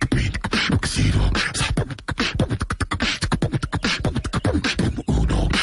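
A person beatboxing, dubbed as a chipmunk's voice: a fast run of vocal drum beats made of low thumps, clicks and hissing strokes.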